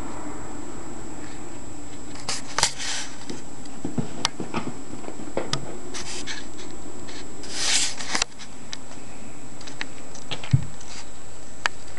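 Staffordshire bull terriers playing with plush toys: scattered small clicks and scuffs, with two short hissing rushes about two and a half and eight seconds in, over a steady background hiss.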